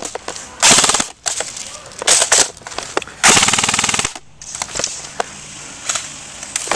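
Airsoft electric rifles firing full-auto bursts: a short burst about half a second in and a longer, louder burst of about a second starting around three seconds in, with a few short bursts between.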